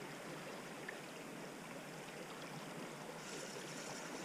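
Creek water running steadily, a faint even rush, with a higher hiss joining about three seconds in.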